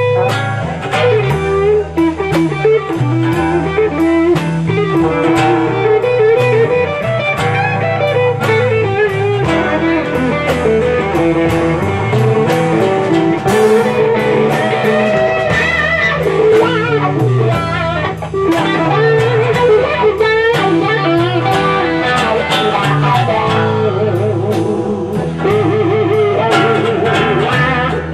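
Live band playing a bluesy instrumental, led by an electric guitar soloing with wavering, bent notes over a steady bass line and a regular beat.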